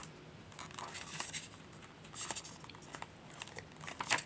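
Sheets of craft paper and their clear plastic packaging being handled: light rustling and crinkling with scattered soft taps, the sharpest one near the end.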